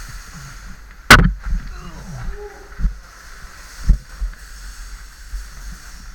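A loud knock about a second in, then two lighter knocks, as steel beams are dragged and lifted over rock. A low rumble of scraping and handling runs underneath.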